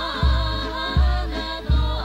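Polynesian revue music playing from an old cassette recording: a wavering melody over a steady bass note that lands about every 0.7 seconds.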